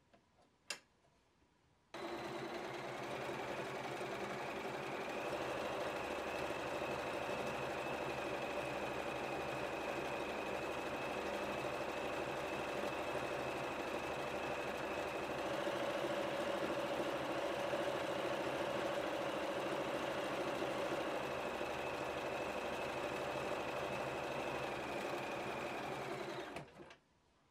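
Bernina 1230 sewing machine running steadily as it sews decorative stitches. It starts about two seconds in, its pitch rises slightly twice along the way, and it stops shortly before the end. A single short click comes just before it starts.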